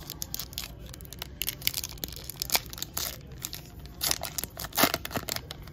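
A baseball card pack's wrapper being torn open and crinkled by hand as the cards are pulled out: a run of sharp crackles, loudest about four to five seconds in.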